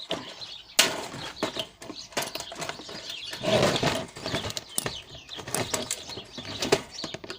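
A large screwdriver prying at a rusted toaster's casing, giving a run of sharp cracks and knocks, the loudest about a second in. Sparrows chirp behind it.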